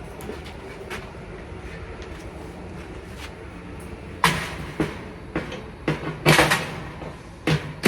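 Dryer parts being handled during teardown at the rear bearing plate. A low steady hum runs through the first half, then from about halfway come a series of sharp knocks and scrapes, about two a second.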